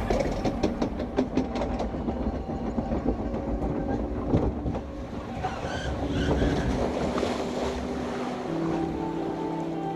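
Log flume boat rattling along its track, with a run of rapid clicks over the first few seconds that settles into a steadier rumble; a low steady tone comes in near the end.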